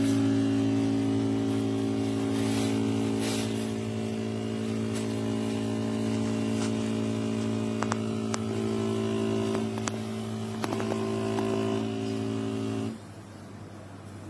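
Neretva 15-bar espresso machine's pump running with a steady, loud buzzing hum while a shot is pulled, then cutting off suddenly near the end. A few light clicks fall in the middle.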